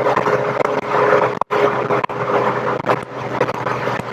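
Rover Metro's 1.8 K-series VVC engine running steadily under way, with road noise, heard through a GoPro's external mic, with a few brief dropouts in the sound.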